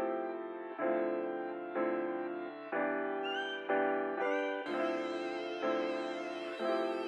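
Background music: sustained keyboard-like chords changing about once a second, with a brighter, higher layer joining a little past halfway.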